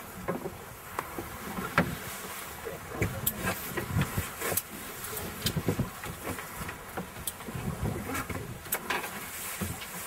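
A boat's engine drones steadily, with scattered knocks and thumps throughout.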